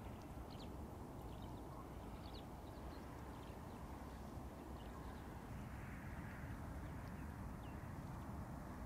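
Faint outdoor dawn ambience: a steady low rumble, with small birds giving short, high chirps scattered throughout.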